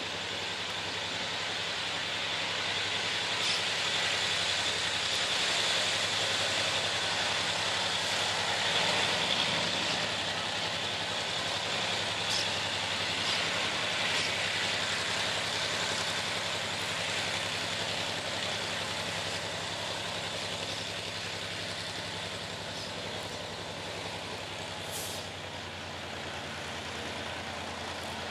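GM EMD G22CU diesel locomotive's naturally aspirated 12-645E engine running steadily as it approaches with hopper cars, loudest about a third of the way through.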